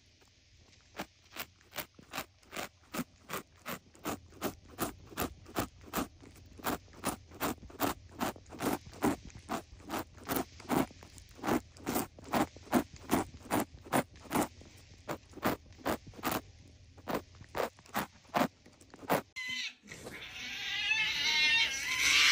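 A white cat sniffing right at the microphone: quick, even sniffs, about two or three a second, getting louder as its nose presses closer. Near the end a louder, wavering cry takes over.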